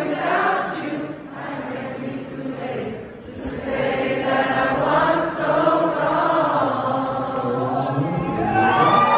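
Many voices singing together in held, sliding harmony at a live pop-rock concert, with little instrumental backing. The singing dips about three seconds in, then swells louder.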